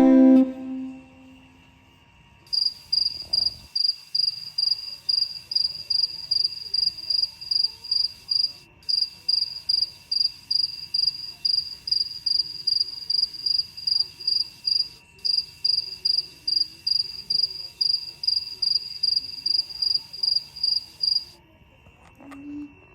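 Cricket chirping in an even rhythm, about two to three short high chirps a second, that stops near the end.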